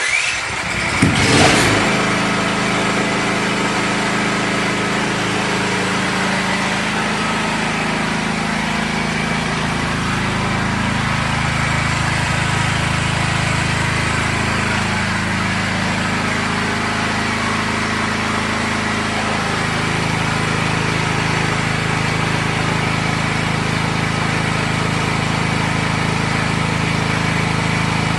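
Small portable generator engine starting about a second in, then running at a steady speed.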